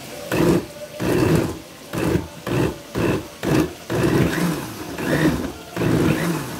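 Countertop blender pulsing a sauce of tomato, chopped vegetables and water, its motor switched on and off in about ten short bursts as it purées the mixture.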